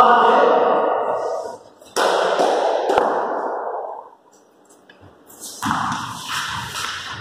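Loud, echoing voices in a large bare hall, with a single sharp knock of the ball in an indoor cricket game about three seconds in, then duller thuds near the end.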